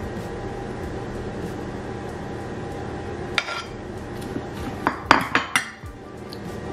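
A metal fork clinking and scraping against ceramic bowls as a salad is tossed and dressing is scraped in: one clink about three and a half seconds in, then a quick run of four or five louder clinks around five seconds.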